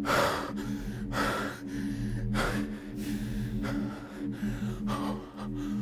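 A man's heavy, gasping breathing, out of breath after running in place: deep breaths about once a second. A steady low hum runs underneath.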